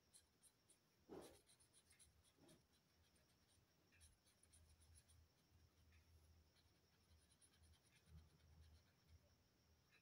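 Faint scratching of a colouring pen stroking back and forth on paper, with a soft knock about a second in.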